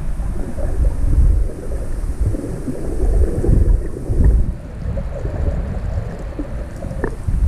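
Muffled underwater rumble and water movement picked up by a camera in a waterproof housing while snorkeling, swelling and fading in uneven surges, with a faint click near the end.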